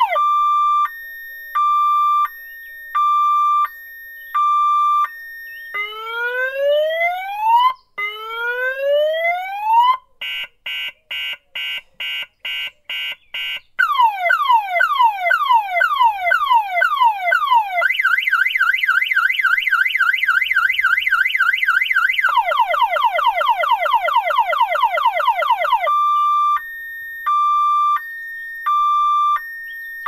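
Electronic car alarm siren sounding loudly and cycling through its tone patterns: a high-low two-tone, then two slow rising whoops, a run of rapid beeps, fast falling and rising chirps for several seconds, and then the two-tone again near the end.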